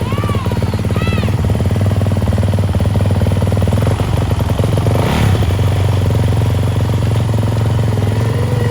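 Small dirt bike engine running steadily at idle, just after it has been started.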